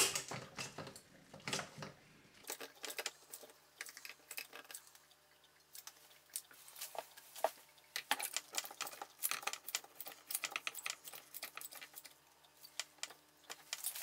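Faint, irregular clicks and ticks from a caulking gun and plastic adhesive cartridge being worked as grab adhesive is squeezed out along a plastic fridge door shelf.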